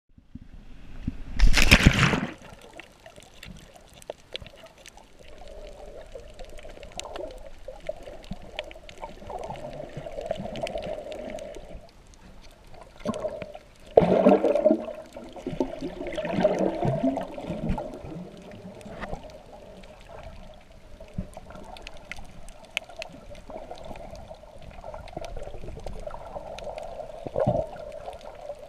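Muffled underwater sound picked up through a GoPro's waterproof housing: water sloshing and gurgling around the camera, with a loud whoosh about two seconds in and louder surges about halfway through.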